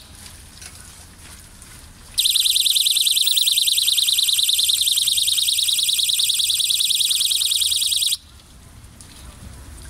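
Solar ultrasonic animal repeller's speaker sounding a loud, high-pitched electronic alarm that warbles in rapid pulses. It starts about two seconds in, lasts about six seconds and cuts off suddenly.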